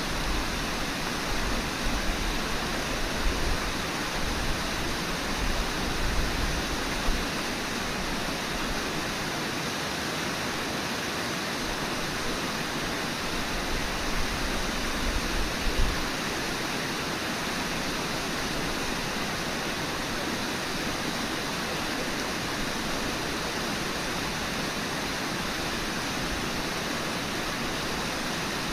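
Steady rush of river water pouring over falls and rapids, a constant even hiss, with a few low rumbles and thumps in the first half.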